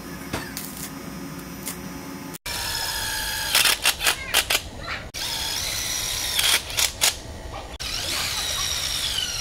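Arc welding on a steel bicycle frame, a hum with crackle, cut off suddenly about two and a half seconds in. Then a cordless drill whines as it bores into the frame tube, with rattling bursts as the bit bites. Its pitch drops under load near the end.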